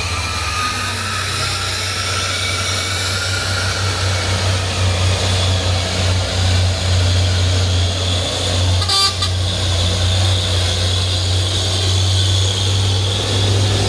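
Heavy truck's diesel engine running steadily on an uphill climb, with a short horn toot about nine seconds in.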